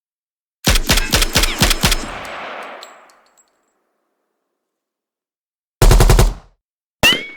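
Automatic gunfire sound effect: a burst of about ten rapid shots with a fading echo tail, then a second, faster burst a few seconds later. Near the end comes a single short crack followed by a ringing tone that rises, then falls.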